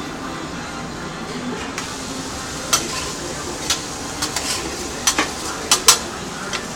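Steady sizzle of a burger frying on a kitchen grill, with a string of sharp metal clinks and knocks from kitchen utensils starting about three seconds in.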